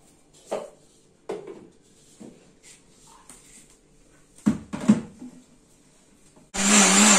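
Clunks and knocks of a steel mixer-grinder jar and its lid being handled and set on the base. About six and a half seconds in, the electric mixer grinder starts and runs steadily, grinding drumstick leaves, coconut and water into chutney.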